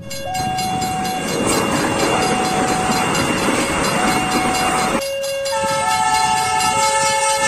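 Railway level-crossing alarm sounding a two-note electronic chime that alternates about once a second, over the clatter and rumble of a train passing for the first five seconds. After that the train noise drops away and the chime continues more clearly, with several steady higher tones alongside it.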